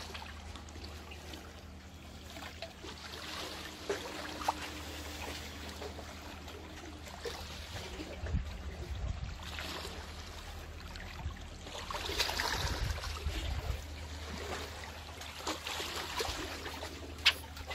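Small waves washing and trickling among the concrete tetrapods of a sea breakwater, swelling twice in the second half, over a steady low rumble. A few light clicks, with one sharp click near the end.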